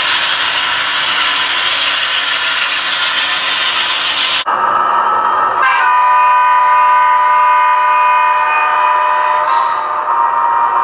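A steady rushing noise of a model train rolling on the track, then a model diesel locomotive's horn. The horn gives one long blast of several tones sounding together, lasting about four seconds.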